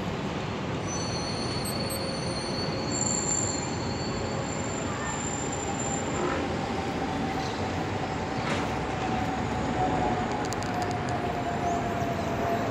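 Airbus A320 passing overhead on a go-around: steady jet engine noise with a sustained whistling tone that grows stronger and slowly falls in pitch through the second half. The whistle is the one typical of the A320 family, made by airflow over the fuel overpressure-protector vents under the wings.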